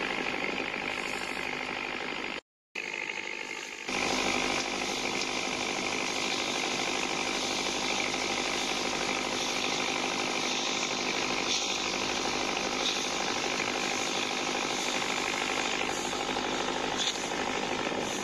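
Toy pop-pop boat engines running, making a rapid, steady putt-putting. The sound drops out briefly about two and a half seconds in, then comes back.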